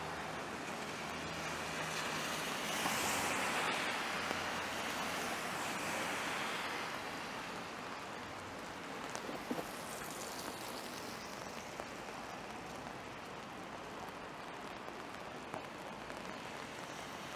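Steady rain on a city street, mixed with the hiss of tyres on wet road. The hiss swells for a few seconds about two seconds in as a vehicle passes, then settles.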